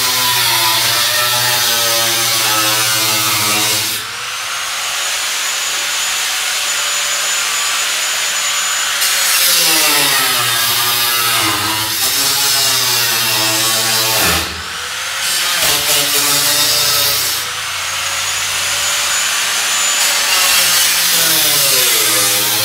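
Electric angle grinder cutting into the rusted sheet-metal cowl of a 1968 Chevy C-10 cab: a loud whine with a hiss of metal, its pitch sagging and wavering as the disc bites. About four seconds in, and again around fifteen seconds in, it runs free for a few seconds at a steady, higher pitch.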